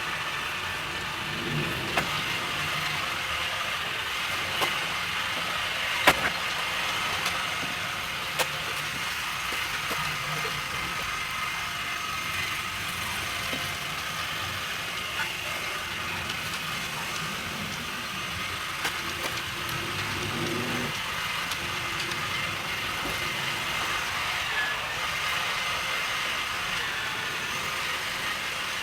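Ainol A-S11 robot vacuum running in mop mode across a linoleum floor: a steady whir of its motors, with a few sharp knocks, the loudest about six seconds in.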